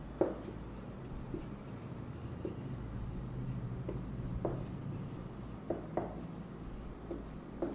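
Marker pen writing on a whiteboard: faint scratchy strokes and light ticks as words are written out, over a low steady hum.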